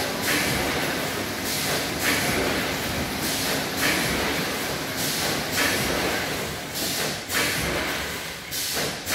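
Fully automatic namkeen snack pouch packing machine with a multihead weigher, running: a steady mechanical sound with a burst of hiss repeating about every one and a half to two seconds.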